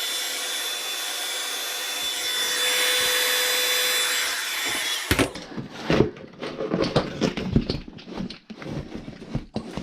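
A hot-air blower runs steadily with a high whine, then switches off suddenly about five seconds in. Handling knocks, clicks and rustling follow.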